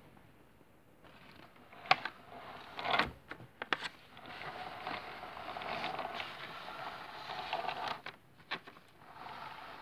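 Small electric motor of a battery-powered toy train running as it moves paper model carriages along a wooden floor, with a steady rough whirr through the middle and a few sharp clicks and knocks in the first four seconds.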